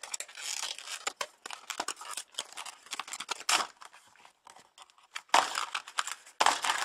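Packaging crinkling and tearing as it is handled and pulled open during an unboxing: a dense run of irregular crackles and rustles, with a few louder tears about three and a half, five and a half and six and a half seconds in.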